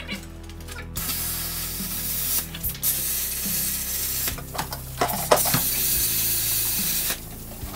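Hypertherm Powermax 30 XP plasma cutter cutting steel: a loud steady hiss that starts suddenly about a second in, breaks off briefly twice, and stops near the end.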